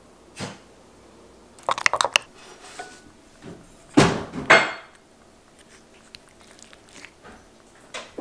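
Spoons clinking and scraping against a ceramic bowl and plate in a few short bursts, the loudest a pair of scrapes about four seconds in, with quiet room tone between.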